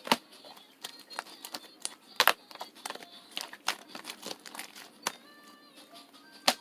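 Irregular crinkling with scattered sharp clicks, three of them louder: one right at the start, one about two seconds in, and one near the end.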